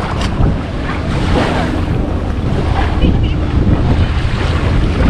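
Wind buffeting the microphone in gusts, over small waves washing onto the shore.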